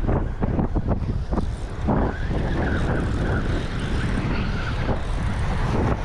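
Wind buffeting the microphone, with small bay waves washing against shoreline rocks. The wind comes in gusts in the first second or so, then blows more steadily.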